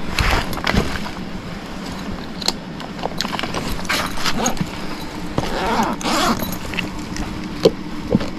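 Rustling and handling noises with scattered sharp clicks and taps, over a faint steady hum.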